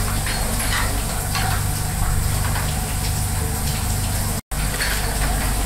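Restaurant kitchen at work: a steady sizzling hiss over a low hum, with faint light clatter, broken by a split-second drop-out about four and a half seconds in.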